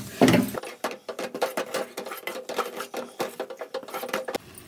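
Perforated steel ladle scraping and knocking against an aluminium kadai as a thick roasted-gram and coconut paste is stirred, in quick irregular clicks and scrapes.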